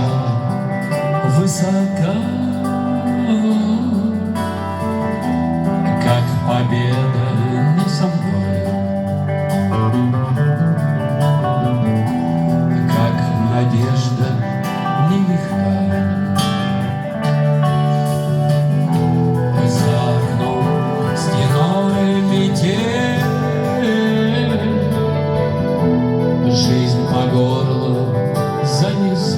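Rock band playing live: guitars and bass with a singing voice, loud and continuous.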